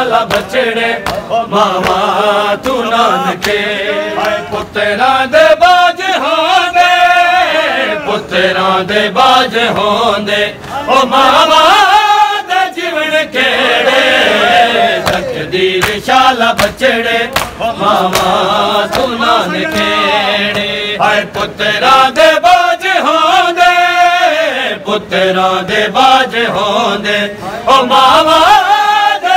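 A group of men chanting a Punjabi noha in unison, in long phrases that swell and fade. The chanting is crossed by sharp rhythmic slaps of mourners beating their chests (matam).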